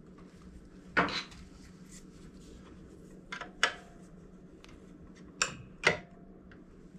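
Small steel hand tools tapping and clinking against the steel tool rest of a belt grinder: about five sharp metallic clinks, a couple ringing briefly, over a faint steady hum.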